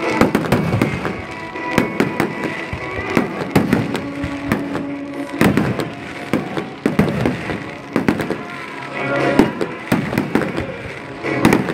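Aerial fireworks display: shells bursting in quick succession with sharp bangs and crackles, over music.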